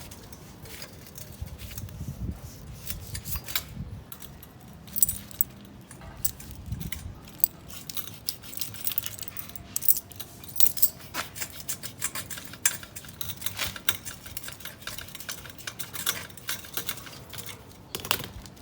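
Small metal objects clinking and rattling: an irregular run of sharp clicks and taps, like tools and bicycle parts being handled.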